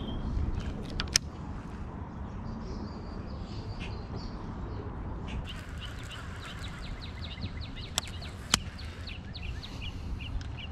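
A small bird calling a rapid run of short, repeated chirps, about four or five a second, through the second half, over a steady low rumble of outdoor background noise. A few sharp clicks stand out, one about a second in and two near the end.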